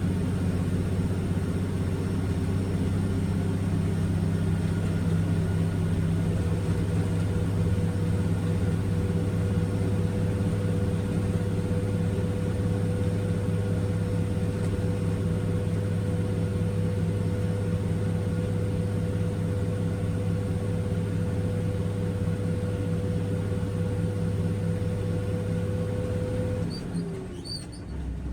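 Diesel engine of a concrete mixer truck running steadily, heard from the cab, with a thin steady whine that comes in about six seconds in. Near the end the engine sound drops and falls in pitch.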